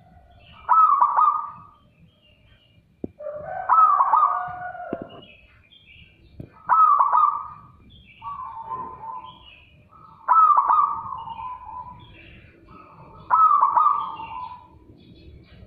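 Caged zebra dove (perkutut) singing its loud, clear cooing song: six phrases of about a second each, roughly three seconds apart, the fourth one softer.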